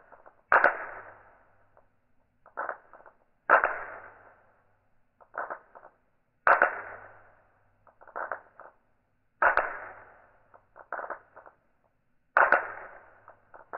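Steel balls of a seven-ball Newton's cradle clacking together, played back in slow motion so each collision is drawn out. A loud clack with a long fading tail comes about every three seconds, with a quieter cluster of clicks between each pair.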